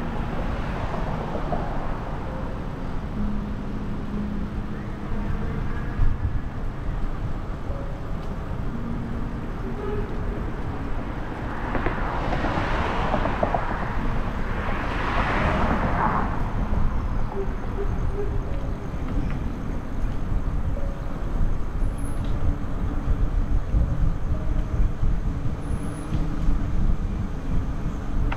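Road traffic heard during a bicycle ride: a steady low rumble, with two vehicles passing one after another about halfway through, each swelling and fading away.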